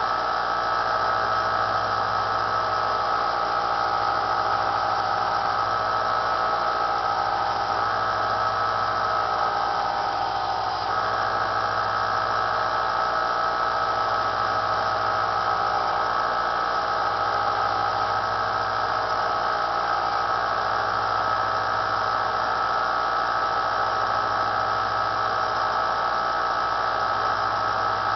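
Small benchtop belt sander running steadily with a whine, while a stainless steel table knife is sharpened on it; the tone shifts briefly about eleven seconds in.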